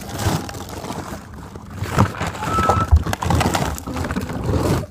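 Knocks, thuds and crunching of frozen food packages as a child climbs into a chest freezer, with two sharper knocks about two and three seconds in.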